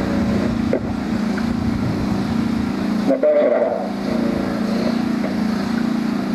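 An engine running steadily at a constant idle, with wind on the microphone; a short, louder call cuts through about three seconds in.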